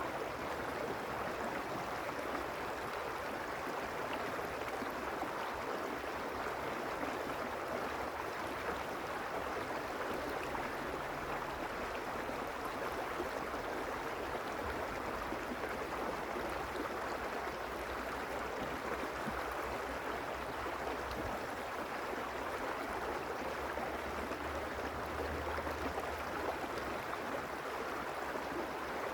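Mountain stream running steadily over rocks, a constant rushing and gurgling of water.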